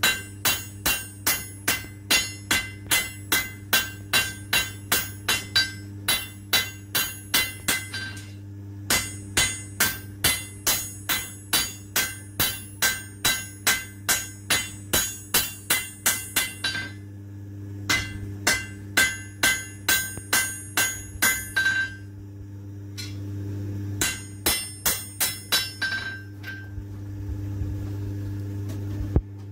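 Hand hammer forging a red-hot knife blade on an anvil: runs of quick strikes, about three a second, each with a short metallic ring, with brief pauses between runs. The strikes stop about 26 seconds in. A steady low hum runs underneath throughout.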